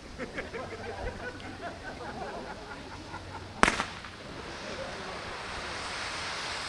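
A single sharp firework bang just past halfway, followed by a hiss that builds and holds. Before it, indistinct voices of onlookers.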